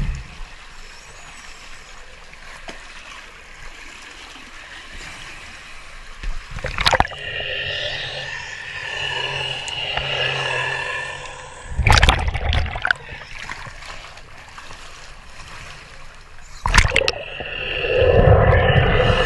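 Water sloshing and gurgling around the spinning Remora Solo underwater rotary brush as it scrubs a boat hull at and below the waterline, with a steady whir from the tool that comes and goes. Three sharp knocks or splashes stand out, about a third of the way in, near the middle and near the end.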